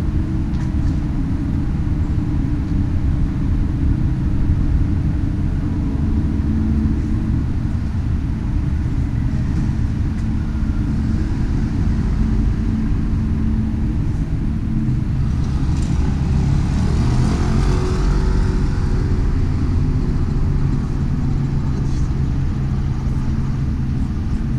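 Steady low rumble of road traffic, with a vehicle passing more loudly about two-thirds of the way through.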